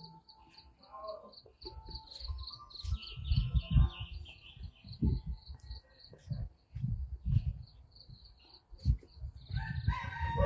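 An insect calls in a high, evenly pulsed trill, about four pulses a second, joined briefly by a second faster-pulsing insect. Irregular low thumps of walking and handling on the phone microphone are the loudest sound, and birds chirp near the end.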